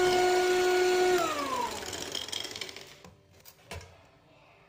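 Electric hand mixer beating eggs and powdered sugar in a bowl, its motor humming steadily at one pitch. About a second in it is switched off and the hum falls in pitch as the motor spins down. A light knock comes near the end.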